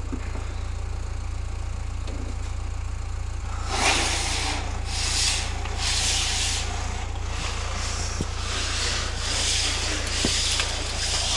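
A long standing seam metal roofing panel being pulled up a ladder by hand, sliding and rubbing in a series of strokes that start about four seconds in, over a steady low rumble.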